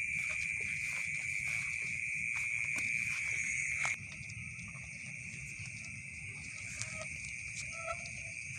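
Steady, continuous high-pitched trilling chorus of night insects, which drops abruptly in level about four seconds in.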